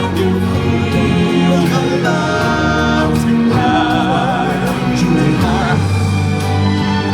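Stage-show music with singing: voices holding long notes over the band, with one wavering note from about three and a half seconds in.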